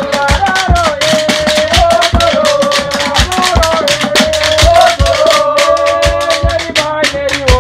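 Music: a steady drum beat with shaken rattles and a held, wavering melody line over it.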